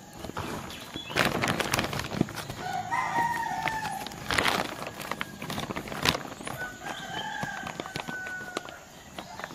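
Crinkling and rustling of a clear plastic bag as dried bamboo shoots are poured in and the bag is handled and tied, the loudest crackles about one, four and a half and six seconds in. A rooster crows twice, about three seconds in and again about seven seconds in, each crow one long, slightly falling call.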